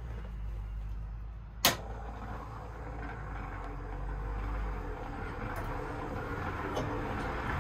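1980 American LaFrance pumper fire truck's engine running steadily at idle, heard from inside the cab as a low hum. A single sharp click sounds about two seconds in.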